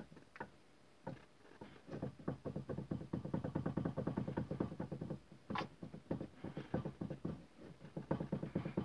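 Toyota Corolla steering rack knocking in quick, uneven runs of several knocks a second, with short pauses between runs: the knock of a worn steering rack.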